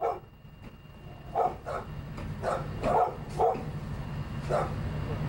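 A dog barking, about seven short barks at uneven intervals, over a steady low hum.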